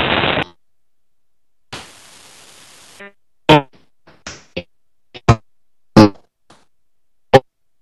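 Glitched audio coming through a Skype call with every microphone muted: short, abruptly cut snippets that sound like fragments of earlier voices, separated by dead silence. A loud burst ends about half a second in, and a stretch of hiss from connection interference comes about two seconds in.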